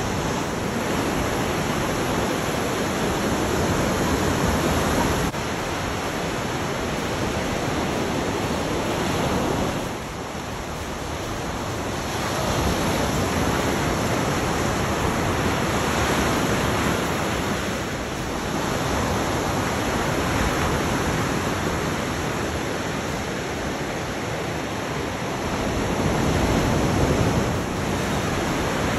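Ocean surf: waves breaking and washing up the beach, a loud steady rush that swells and falls back every few seconds.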